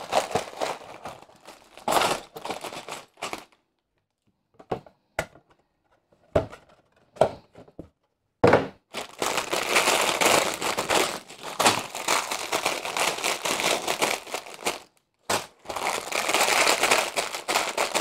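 Clear plastic bags of Lego bricks crinkling as gloved hands handle them. The first half is a few brief rustles and taps; from about halfway through the crinkling is almost continuous, with a short break near the end.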